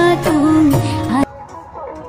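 Background music: a sung Indian-style melody with a wavering voice over accompaniment, cut off abruptly a little over a second in and replaced by quieter instrumental music with plucked guitar-like notes.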